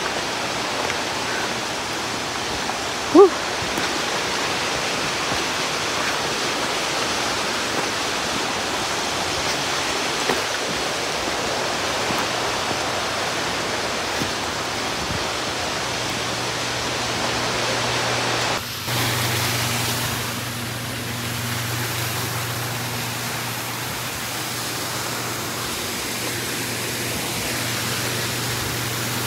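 Steady rushing of a mountain stream beside the trail, a constant hiss of water. About three seconds in there is one brief, loud rising chirp, and about two-thirds of the way through the sound changes abruptly, with a low steady hum under the water from then on.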